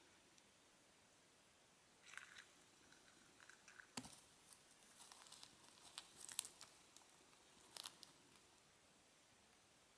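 Faint, scattered clicks and short scratchy rustles, sharpest about four seconds in and again near the end, from a dubia roach scrabbling on coco-fibre and plastic as a Grammostola pulchripes tarantula seizes it.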